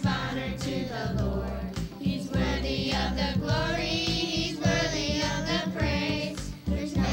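A children's song: several voices singing together over a steady drum beat.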